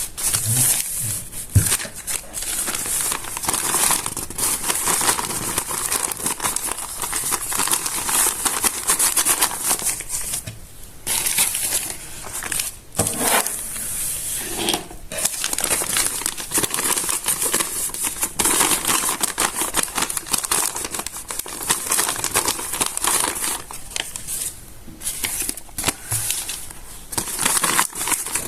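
Stiff, water-damaged notebook pages crinkling and crunching as they are handled and smoothed out, in long runs of crisp crackle with brief pauses about eleven seconds in and again near twenty-five seconds.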